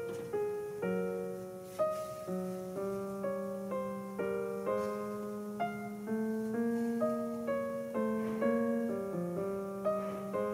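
Background piano music: a slow, gentle melody of single notes struck about twice a second over a held lower note.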